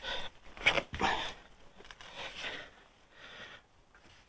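Foam comfort-grip sleeve being twisted and pushed onto a rubber handlebar grip: a series of short, soft rubbing scuffs of foam against rubber.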